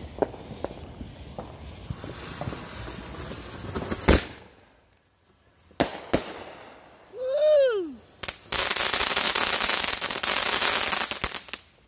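Ground fountain firework crackling faintly, with a sharp crack about four seconds in, then a loud steady hiss of spraying sparks from about eight and a half seconds that cuts off near the end. A brief falling tone sounds just before the hiss.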